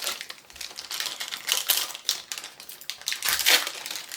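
Foil booster pack wrapper being handled and torn open, a dense, irregular run of crinkles and small clicks, loudest about a second and a half in and again past three seconds.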